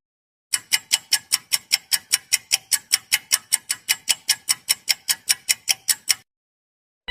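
Rapid, even ticking sound effect, about five ticks a second, starting about half a second in and stopping about a second before the end.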